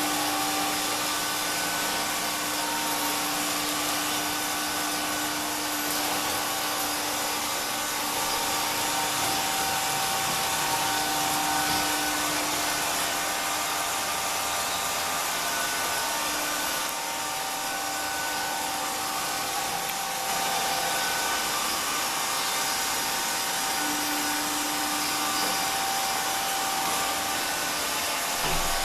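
AEG robot vacuum cleaner running: a steady suction hiss with a motor hum whose pitch shifts now and then. A brief low thump near the end.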